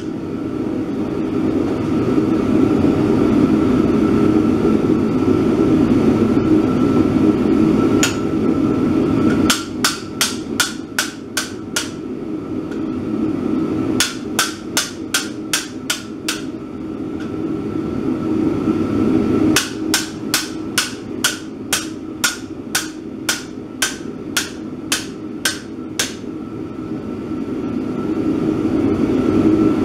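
A hand hammer striking a slitting chisel into a red-hot steel bar on an anvil, in three runs of sharp ringing blows with pauses between them. The first runs go at about three blows a second and the last, longer run at about two a second. A steady low rumble runs underneath and is the loudest sound for the first nine seconds or so, before the hammering begins.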